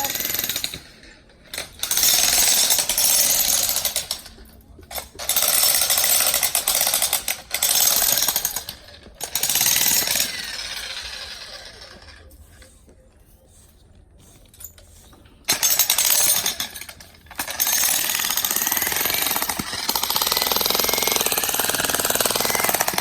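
Jackhammer breaking rock in repeated bursts of a few seconds, stopping and restarting, with a longer pause around the middle.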